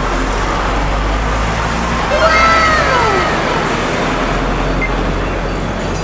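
Steady road-traffic noise, with one vehicle passing in a falling drone about two seconds in. Under it, a low hum sets in as the PC and its AIO cooler's fans are powered up.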